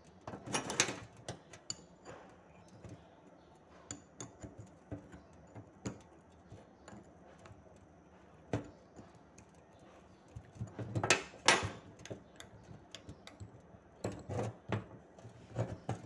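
Small metal clicks and rattles of a limit switch and its roller lever arm being handled and fitted back together, with clusters of clicking about half a second in, around eleven seconds in and near the end.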